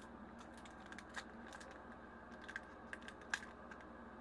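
Faint, scattered clicks and crinkles of Pokémon trading cards and their booster-pack wrapper being handled, with one sharper click a little after three seconds.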